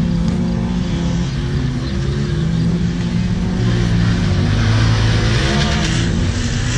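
Side-by-side buggy engine racing on a dirt track, its pitch rising and falling with the throttle, with a louder rush of noise about five seconds in as it passes nearest.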